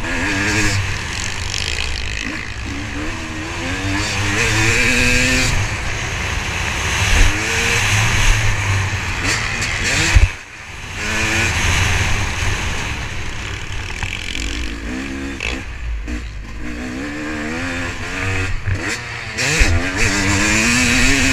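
Motocross dirt bike engine heard from on board, revving up and down through the gears under hard acceleration, with wind rushing over the microphone. About ten seconds in there is a sharp knock and the engine briefly falls quiet.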